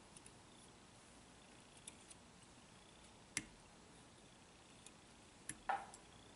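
A few faint, scattered clicks and light handling sounds of a wire whip-finish tool working tying thread at a fly-tying vise, with one sharper click about three and a half seconds in and a small cluster of ticks near the end.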